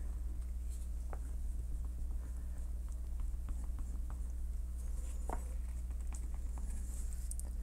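Faint scraping and light ticks of a plastic applicator card rubbed and pressed over a phone's screen protector to work out white lines, over a steady low hum.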